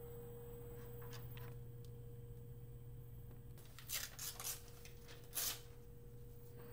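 A sheet of paper rustling and tearing in a few short bursts about four seconds in and once more about five and a half seconds in, over a steady low hum.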